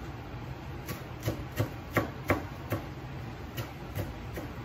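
Kitchen knife chopping fresh culantro on a cutting board: a run of short, uneven knocks, about two a second.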